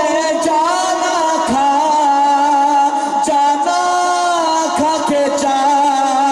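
A man singing a naat, an Urdu devotional song, into a microphone without instruments. He holds long notes that bend and shift in pitch.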